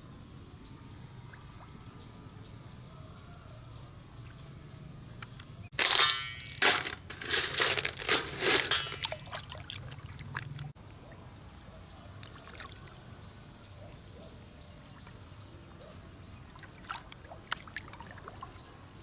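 Water trickling and splashing. About six seconds in comes a loud stretch of heavy splashing that lasts some five seconds and stops abruptly, followed by faint scattered splashes.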